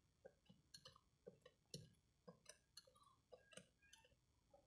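Faint, irregular clicking and ticking, about two or three a second, from a grease gun's coupler pressed onto the grease nipple of a truck's leaf-spring shackle pin while grease is pumped into the joint.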